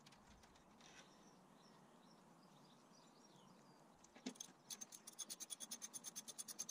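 Near silence for about four seconds, then a single click and a fast, even run of ratchet clicks, about nine a second, as a socket ratchet winds out a seat-catch bolt.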